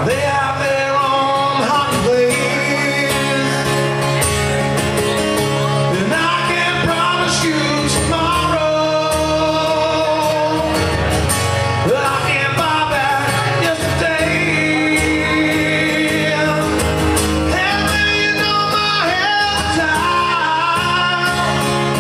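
A man singing into a microphone while strumming an acoustic guitar, both coming through a PA system in a bar room.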